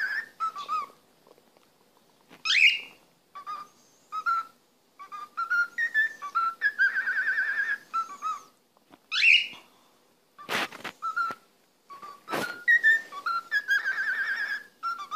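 Cockatiel whistling a tune: a string of short whistled notes, some warbling, two sweeping sharply upward, with short pauses between phrases. Two sharp clicks fall near the end.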